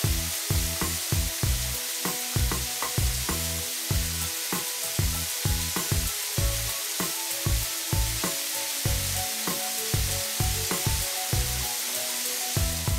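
Steady spraying hiss sound effect over upbeat background music with a regular bass beat; the hiss stops suddenly at the very end.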